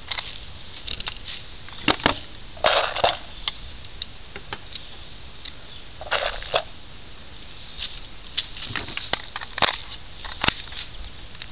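Footsteps and rustling in dry grass, with a few sharp clicks scattered through.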